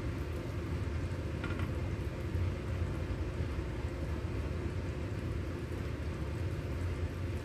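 Steady low rumble of background noise, with a couple of faint clicks about a second and a half in.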